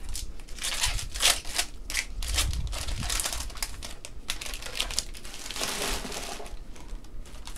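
Wrappers of Panini Contenders basketball card packs crinkling, with irregular crackles and clicks as gloved hands tear open packs and handle the cards.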